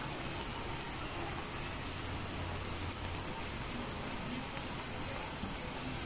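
Steady frying sizzle from minced meat cooking in a frying pan, a soft even hiss.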